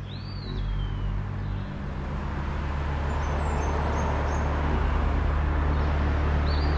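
A vehicle engine drawing nearer, a low steady drone growing gradually louder, its note shifting about two seconds in. A bird gives short chirps at the start and again at the end.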